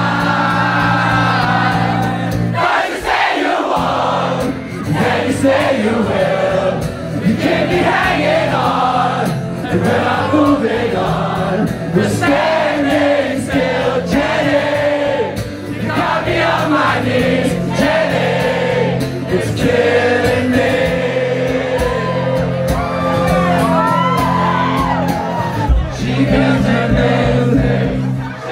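Live acoustic guitar and a man singing a pop-rock song through a PA, with the crowd singing along.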